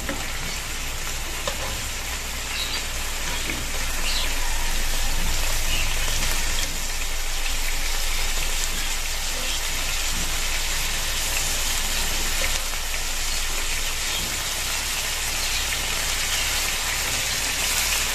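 Marinated boneless chicken pieces sizzling steadily in hot oil in a nonstick frying pan, with scattered small crackles of spattering oil. It grows a little louder about four seconds in.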